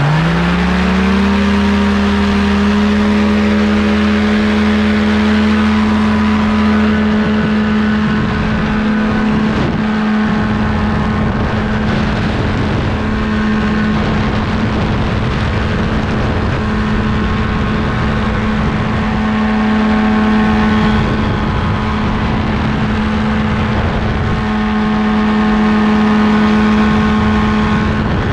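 Paramotor engine and propeller rev up to full power in the first second or so for the takeoff run, then run at a steady high pitch through the climb, with wind noise on the microphone.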